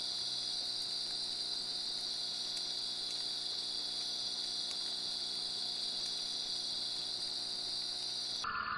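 Crickets calling in a steady, unbroken high-pitched chorus. Just before the end it cuts abruptly to a lower-pitched steady insect drone.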